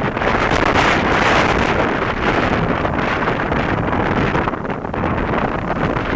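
Storm wind gusting hard across the microphone, a loud continuous buffeting roar that swells about a second in and eases a little past the middle.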